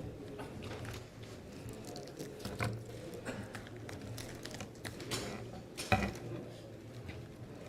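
Faint ambience of a large hall: a low hum with scattered small clicks and knocks, a sharper knock about six seconds in, and faint murmuring.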